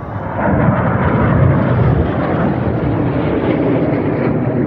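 Jet aircraft of an aerobatic display formation flying past low overhead: a loud, steady jet roar that swells about half a second in and stays strong.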